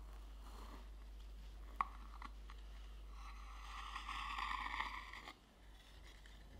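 Kitchen knife cutting down through a mousse cake with a jelly top and sponge base. A sharp tick about two seconds in, then a scraping sound lasting about two seconds that stops abruptly.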